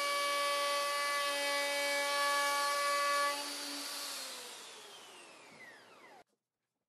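Festool OF 2200 plunge router with a large chamfer bit running steadily and cutting a bevel into the underside edge of a hardwood tabletop. About three seconds in it is switched off and its whine falls as the motor spins down, stopping abruptly about six seconds in.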